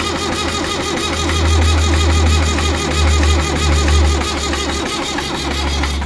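Massey Ferguson tractor's diesel engine being turned over on the starter motor, a fast, even rhythmic churning that does not catch and stops at the very end. The engine is cranked to push air out of the fuel system after a fuel filter change, and it is not firing.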